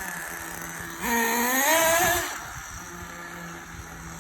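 Nitro RC car's small glow-fuel engine idling, revved up once about a second in for roughly a second, then dropping back to a steady idle.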